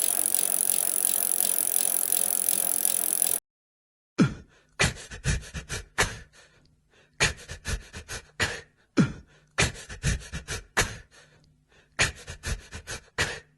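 A steady air-conditioner hiss lasts for about three seconds and then cuts off. After that come irregular clusters of short knocks and clicks from objects being handled, with dead silence between the clusters.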